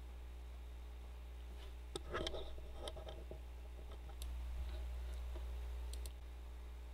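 A few faint computer keyboard clicks as file names are typed, over a steady low electrical hum that grows a little louder for about two seconds past the middle.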